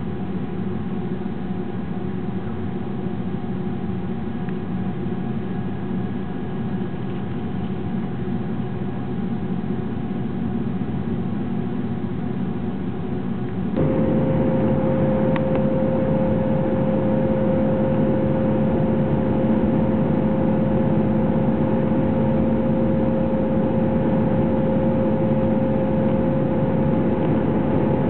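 Steady drone of an airliner's jet engines and rushing air, heard from inside the cabin. About halfway through it suddenly gets louder, with a steady mid-pitched whine added on top.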